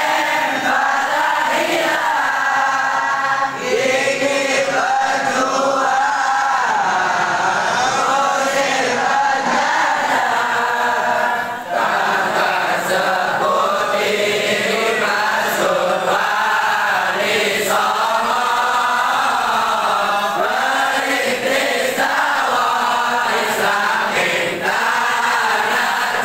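A congregation of male voices chanting sholawat pujian together, a continuous devotional Islamic hymn in praise of the Prophet Muhammad.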